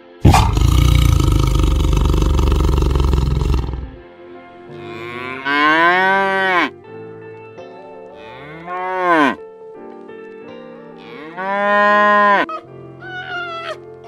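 A white tiger's loud, rough roar fills the first few seconds, then a Holstein dairy cow moos three times, each moo rising and then falling in pitch, over soft background music. Near the end, short high calls that jump up and drop begin.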